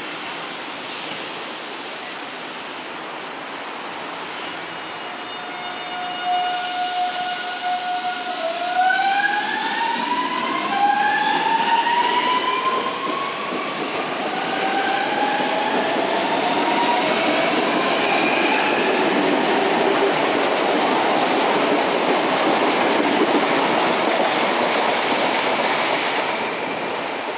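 Alstom Série 9000 electric multiple unit pulling away from a station platform. Its traction motors give a whine that climbs in pitch in several rising steps as it accelerates, over a growing rumble and clatter of wheels on rail as the cars pass; the noise eases off near the end.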